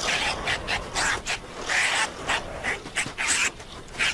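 Honey badgers in a courtship scuffle, giving short harsh calls in a quick, irregular string of about three a second.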